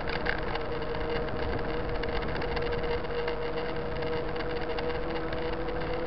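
29er mountain bike rolling along asphalt: a steady hum from the tyres with frequent small rattles from the bike and camera mount, under a wash of wind and road noise.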